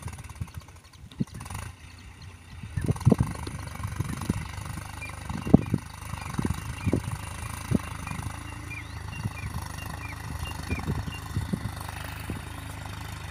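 Tractor engine running steadily as it pulls a plough between cotton rows, under irregular low rumbling thumps.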